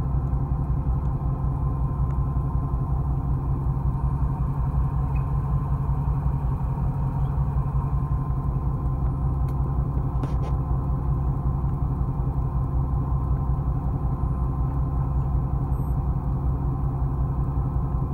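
A fishing boat's engine running steadily: a low, even drone with no change in pitch or level.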